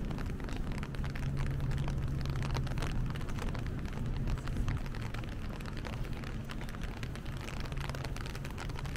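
Rain pattering as a dense crackle of small drops, over a low steady city-traffic engine hum that weakens about three seconds in.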